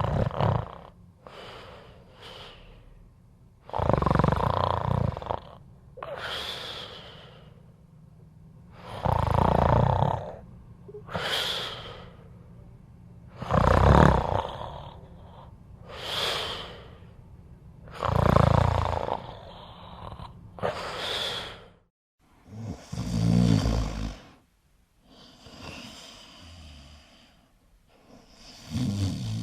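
A person snoring loudly in a regular rhythm: a long, harsh snore about every four and a half seconds, each followed by a shorter, fainter breath. About three quarters of the way through it changes suddenly to a lower, fluttering snore.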